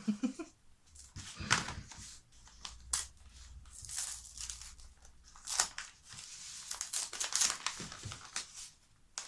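Gift wrapping paper being crinkled and torn open by hand, in irregular rustles and rips.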